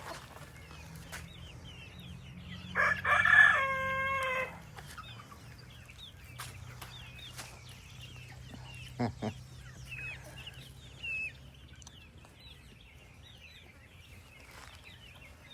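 A rooster crows once, about three seconds in, a loud call of about two seconds ending on a held note. Faint high chirps from small birds run throughout, over a steady low hum.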